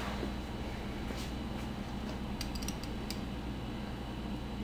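Steady low hum with a quick run of faint metal clicks a little past halfway, as a metal plantain slicer is handled over the pan.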